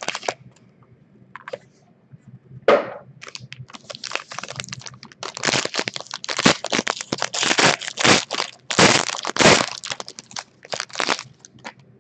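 Plastic shrink wrap being cut and torn off a sealed box of trading cards, crinkling and crackling in a quick, irregular run starting about three seconds in.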